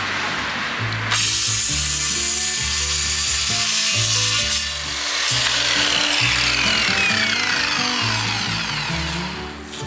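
Corded circular saw cutting through a wooden board: the saw starts about a second in, runs loud through the cut with a short dip just before halfway, and its whine falls in pitch over the last few seconds.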